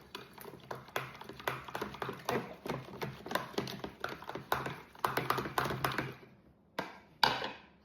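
A utensil tapping and clinking against a bowl in quick, irregular strokes while sourdough starter is stirred, then two louder knocks near the end.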